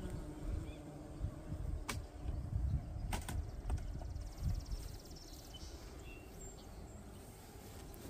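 Wind rumbling on the microphone, stronger in the first half and easing later, with a few sharp clicks and knocks about two and three seconds in from wooden hive parts being handled.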